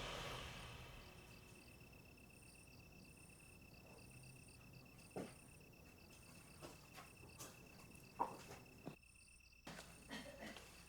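Faint crickets chirping in a steady, evenly pulsing rhythm over a high continuous trill. A single sharp knock at the very start rings out briefly, and a few faint clicks follow later.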